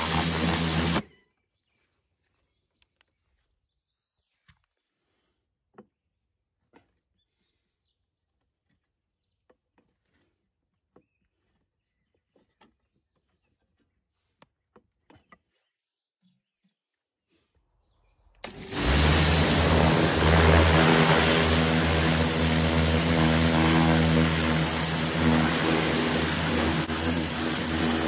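Pressure washer running and spraying, a steady motor-and-pump drone under the hiss of the water jet, cutting off abruptly about a second in. A long near-silent stretch follows with a few faint clicks, then the pressure washer starts up again past the middle and runs steadily on.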